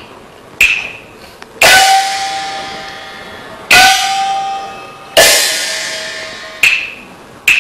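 Chinese opera percussion: three ringing gong strikes, about a second and a half to two seconds apart, each dying away slowly, with shorter, sharper clacks in between.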